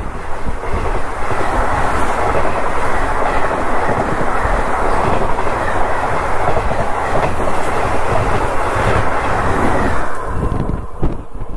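A train's passenger coaches rushing past close by on the adjacent track: a dense, loud rush of wheel and air noise with clattering wheels. It drops away about ten seconds in as the last coach clears.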